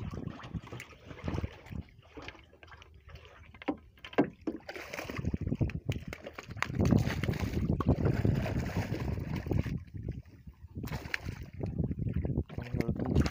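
Irregular knocks, bumps and scraping on the boards of a small wooden fishing boat, with a stretch of heavier rumbling handling noise in the middle that breaks off suddenly.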